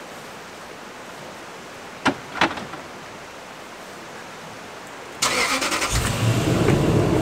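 Two sharp knocks about two seconds in. About five seconds in, a Toyota Land Cruiser 100 series' V8 engine is cranked and starts, then runs steadily.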